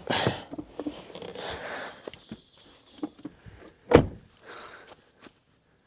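Rustling and scraping handling noises with a few clicks and one sharp knock about four seconds in, cutting off to near silence just before the end.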